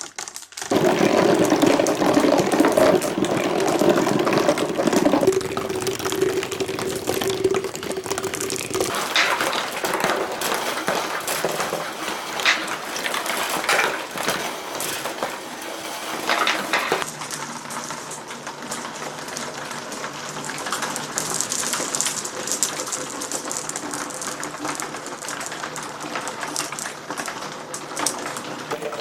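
Many glass marbles rolling and clattering through a marble run, knocking against each other and the track in a dense stream of clicks. In the first few seconds there is a steady rolling hum under the clatter.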